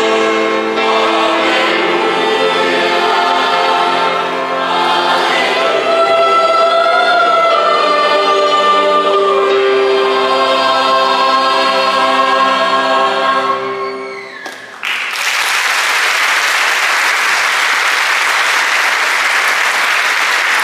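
Mixed choir singing with violins, ending on a long held chord that dies away about fourteen and a half seconds in. Audience applause then starts suddenly and runs on.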